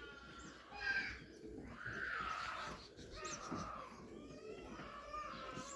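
Domestic pigeons cooing, mixed with higher, shorter bird calls.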